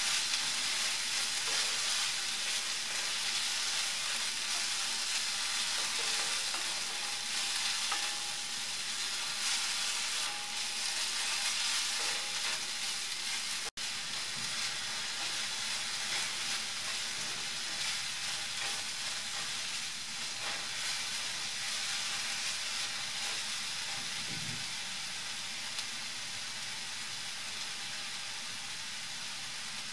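Sliced red onions sizzling in coconut oil in a skillet, partway through sautéing, softened but still with some crunch, and stirred with a wooden spatula in the first half. The sound cuts out for an instant about halfway through.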